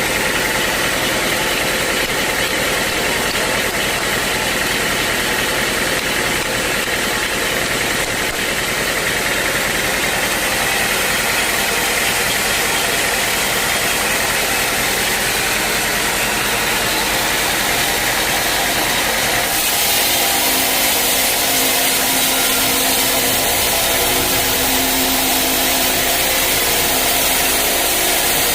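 Sawmill machinery running steadily. About two-thirds of the way in, the sound turns brighter and hissier and a steady low hum comes in.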